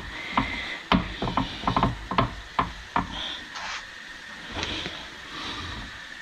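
A knife tapping and cutting against a cutting board as puff pastry is cut into strips: a dozen or so irregular sharp taps and clicks.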